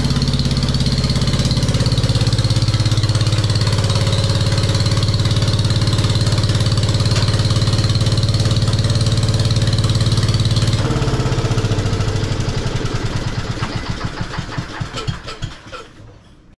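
1973 Wheel Horse tractor's 10 hp Kohler K241 single-cylinder engine running steadily. About eleven seconds in it is switched off and runs down through a string of slowing, fading putts, stopping about five seconds later.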